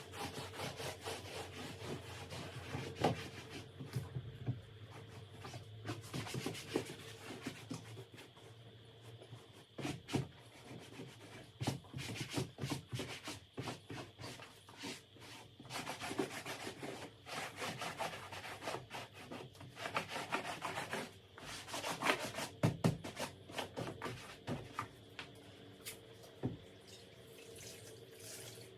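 A damp cleaning cloth being rubbed over fabric sofa upholstery in irregular scrubbing strokes, some passes harder and louder than others.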